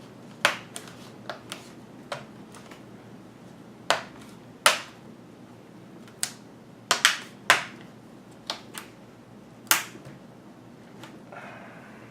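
Plastic snap clips of a Dell Latitude E7440's LCD bezel clicking into place as the bezel is pressed on around the screen: a dozen or so sharp clicks at irregular spacing, some in quick pairs.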